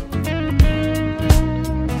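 Instrumental passage of a worship band: guitar and keyboard playing held chords over a steady drum beat, a hit about every 0.7 seconds.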